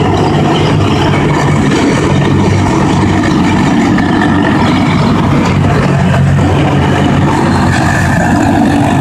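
A column of tracked armoured military vehicles driving past at close range, their diesel engines running loudly and steadily with the rattle of the tracks.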